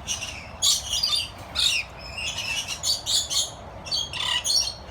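Parrots calling: a steady stream of short, high-pitched chirps and squawks, one after another.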